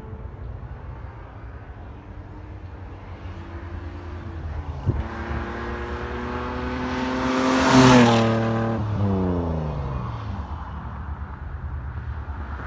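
1989 BMW 635CSi straight-six breathing through new downpipes, manifolds and a custom 3-inch cat-back exhaust, accelerating past in a fly-by. The engine note climbs in pitch and loudness for several seconds, is loudest as the car passes about eight seconds in, then drops in pitch and fades as it pulls away.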